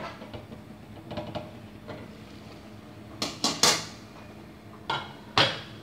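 Metal clanking of a stainless steel steamer pot's lid and a wire steaming rack being handled: a few light clicks, a quick run of three sharp ringing clanks about three seconds in, then two more near the end.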